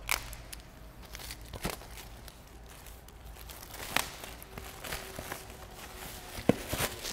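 Clear plastic shrink wrap being peeled and pulled off a laptop box: soft crinkling and rustling with a few sharper crackles.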